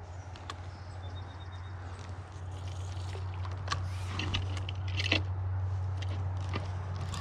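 Spinning reel being cranked to bring back a cast lure, with scattered clicks and ticks over a steady low hum.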